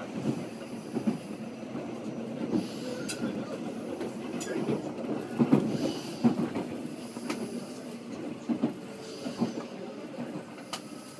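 Train running along the track, heard from inside the passenger car: a steady rumble with irregular knocks and clacks from the wheels on the rails.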